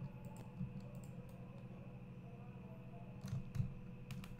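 Scattered clicks of a computer keyboard and mouse as Blender is operated, with a few sharper clicks about three seconds in, over a steady low hum.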